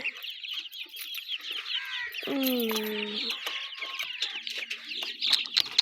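Chicks peeping rapidly and continuously in high chirps, with a lower drawn-out call from a chicken lasting about a second, a little over two seconds in.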